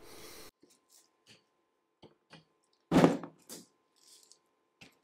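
Metal parts being handled: a few faint clicks and taps, with one louder short knock about three seconds in and a smaller one half a second later.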